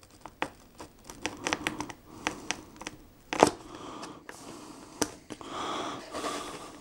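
Scissors cutting and scraping through the packing tape and cardboard of a box: a run of small clicks and scratches, with a sharp snap about three and a half seconds in and a longer scratchy rasp near the end.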